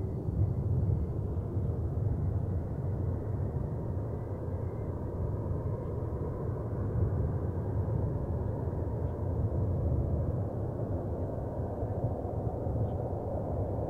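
Jet airliner engines running at a distance: a steady low rumble, with a faint high whine coming in about halfway through.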